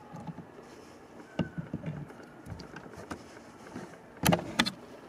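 Small clicks and taps of a screwdriver and needle-nose pliers on a plastic car fuse box, with a burst of sharp clicks near the end as the pliers grip and pull out a blown 15 A blade fuse.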